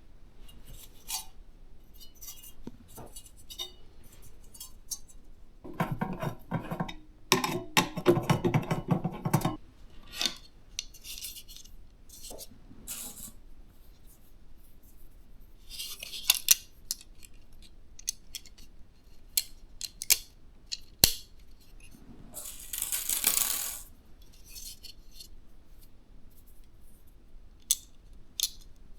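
Hands handling small hard plastic and metal PC parts: scattered clicks and taps, a rattling, scraping stretch of about three seconds, and two short rustles.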